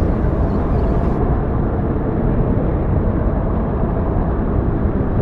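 Wind buffeting the microphone: a loud, steady low noise with no speech.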